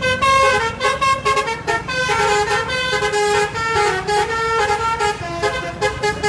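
Indonesian bus 'telolet' horn, a multi-tone musical air horn, playing a quick tune of short notes that jump up and down in pitch.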